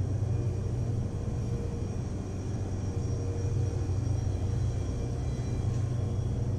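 Steady low mechanical hum with a faint high whine above it, unchanging throughout: the room tone of a shop running its refrigeration and fans.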